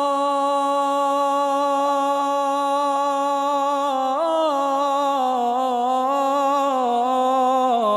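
A man chanting a suluk unaccompanied, stretching one syllable of "Rasulallah" into a long held note. About four seconds in, the note steps up and wavers through a melismatic ornament, then settles back down near the end.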